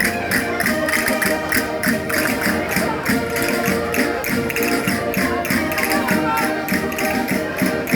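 Concertinas playing a lively folk dance tune, with a quick, steady percussive beat underneath.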